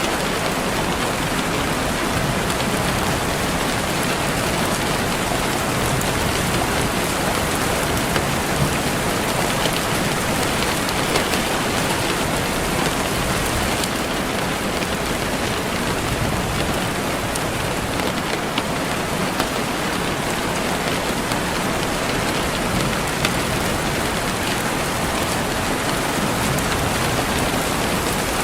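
Steady rain falling, an even hiss with now and then a sharper drop tick standing out.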